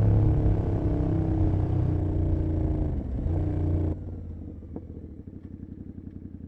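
Royal Enfield Continental GT 650's 648 cc parallel-twin through an open Emgo Hooligan exhaust with no dB killer, running under throttle with its note falling slowly. About four seconds in it drops suddenly to a much quieter, even low beat, as when the throttle is shut.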